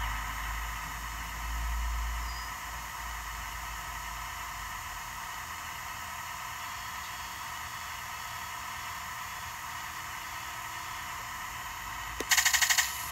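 Electronic sound unit of an RC half-track model playing a simulated engine idling through its small speaker, with a low rumble that swells briefly about two seconds in. Near the end a rapid, much louder burst of simulated machine-gun fire starts.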